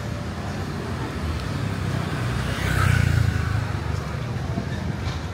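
Street traffic noise with a motor vehicle's engine hum, swelling to its loudest about three seconds in as a vehicle passes, then easing back.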